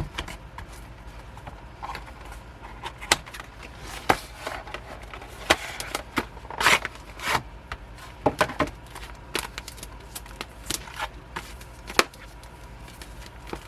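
A K-pop album's packaging being handled and opened by hand: scattered sharp clicks and taps, with a couple of short rustles about halfway through.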